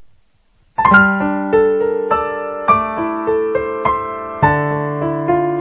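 Background music: a piano or electric piano melody that starts about a second in, with notes struck in a steady rhythm over held chords.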